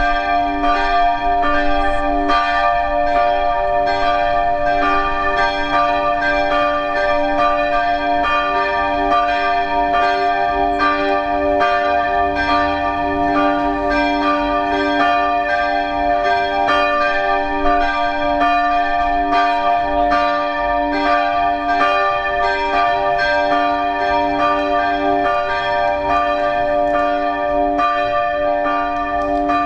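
Several church bells ringing together in a full peal, struck over and over in a steady overlapping rhythm, each tone ringing on between strikes.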